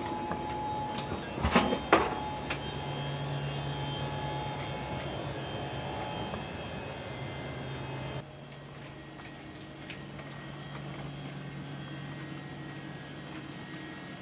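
Steady hum and whir of the International Space Station's cabin fans and equipment, with a low steady drone under it. Two sharp knocks come about one and a half and two seconds in, and the hum gets quieter about eight seconds in.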